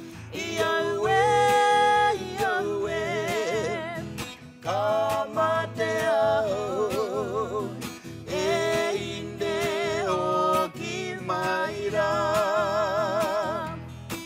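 A man and a woman singing a slow song to a strummed acoustic guitar, in drawn-out phrases with a wavering vibrato and short breaths between them.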